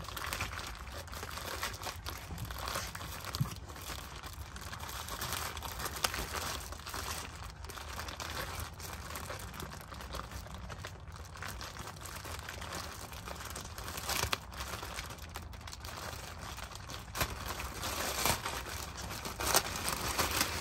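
Packaging being unwrapped by hand: continuous crinkling and tearing with scattered sharp crackles, the loudest crack near the end.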